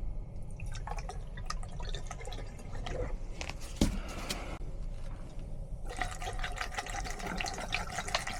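Liquid trickling and dripping, with scattered small ticks that turn into a denser patter about six seconds in.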